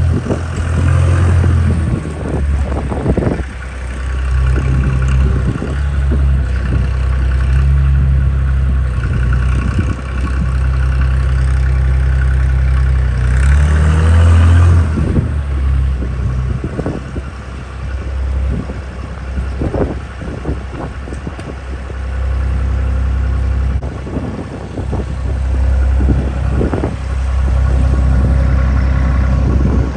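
Bernards W1050C compact wheel loader's diesel engine running as the machine drives and manoeuvres, its note rising and falling, with a rev-up and a burst of hiss about halfway through. Occasional knocks and clatter from the machine are heard over the engine.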